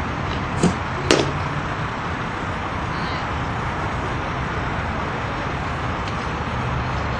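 A softball bat cracking against a pitched ball once, about a second in, just after a lighter knock, over a steady background hiss.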